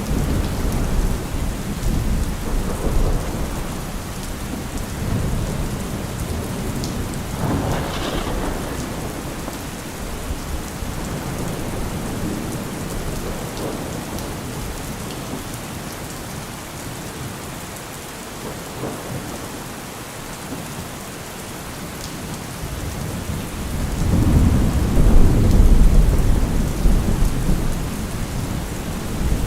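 Steady rain with thunder rolling low underneath. A sharper thunderclap comes about eight seconds in, and a loud, long rumble of thunder swells near the end.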